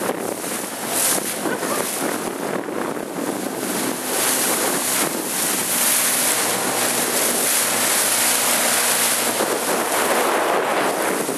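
Strong wind buffeting the microphone over the rush and splash of choppy water alongside a moving boat. A faint low steady motor hum sits underneath through the middle.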